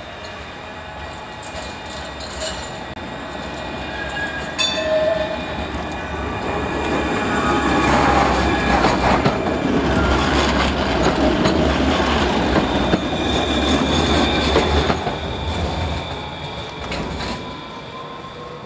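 An HTM RegioCitadis low-floor tram approaches round a curve and passes close by, its wheels rumbling and clattering over the rails, with steady whining tones above the rumble. It swells to its loudest as it goes past, about halfway through, then fades.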